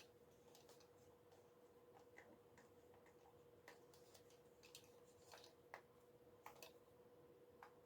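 Near silence with faint, irregular small clicks and taps of plastic camera-accessory parts being handled, over a thin steady tone.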